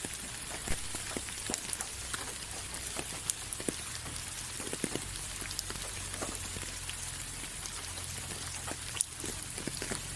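Steady rain falling, a constant hiss with many irregular drops ticking on a surface, and one sharper drop hit about nine seconds in.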